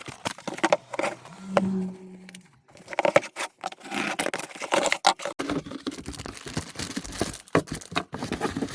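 Parcel being opened by hand: packaging tearing, crinkling and scraping, with irregular clicks and knocks as the contents are handled.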